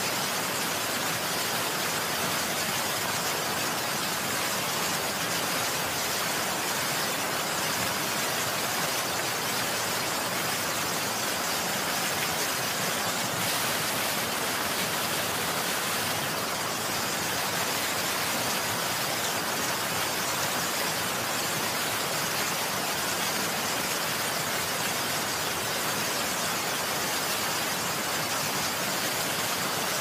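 Steady heavy rain, an even hiss with no separate impacts.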